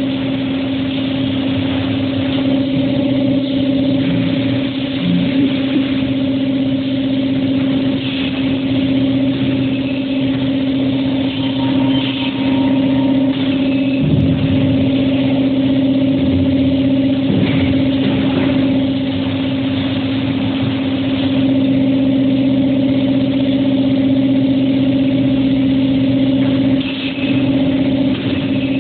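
Automatic carton packaging line running: case erector, case sealer, strapping machine and roller conveyors give a steady motor hum with one strong tone, broken now and then by brief clunks and clicks as cartons are handled.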